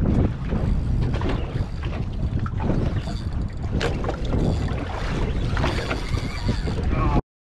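Wind rushing over the microphone on an open boat at sea, with scattered small knocks and clicks; the sound cuts off abruptly near the end.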